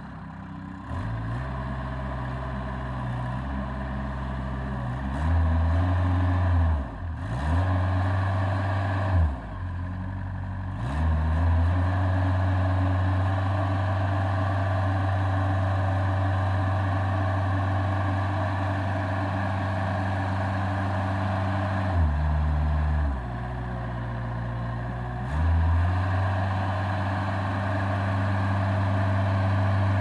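Ingersoll Rand BL370 backhoe loader's engine running while the machine is worked, its revs going up and down. It revs up about a second in and again around five seconds, dips briefly twice a few seconds later, and holds high through the middle. It drops for a few seconds past twenty-two seconds, then revs up again.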